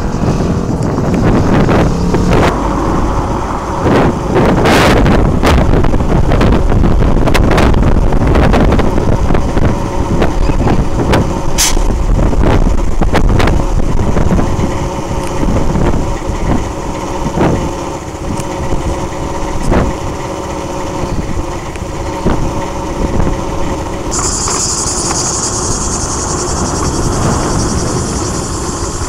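Vehicle engines running, with rough low rumbling and scattered knocks. A steady high hiss sets in near the end.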